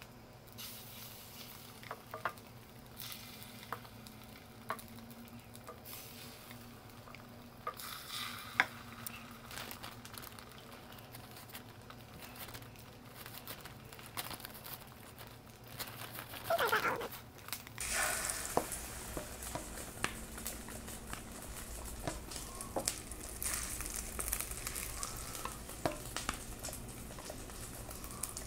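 Battered oysters frying in oil in a pan, a steady sizzle with light clicks of chopsticks against the bowl and pan. A short squeak sounds a little past the middle, and soon after the sizzle grows louder as more oysters go into the pan.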